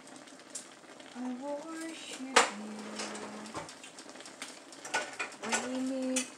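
Kitchenware clinking a few times, one sharp clink about two and a half seconds in and several more near the end, while a person hums a tune in held notes.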